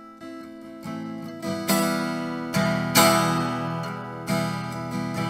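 Solo acoustic guitar growing from soft, sparse notes into hard strummed chords. The loudest strums land about a second and a half, three and four and a quarter seconds in, each left ringing.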